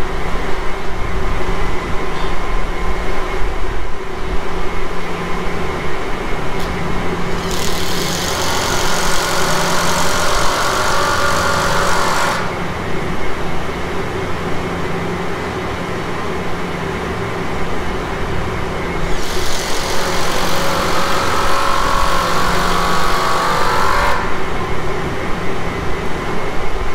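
Bobcat T770 compact track loader's diesel engine idling steadily. Two stretches of hissing noise, each a few seconds long, rise over it, the first about a third of the way in and the second after the middle.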